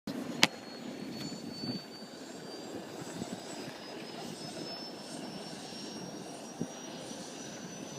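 Helicopter engine and rotor running steadily, with a thin high whine that slowly rises in pitch. There is a sharp click about half a second in.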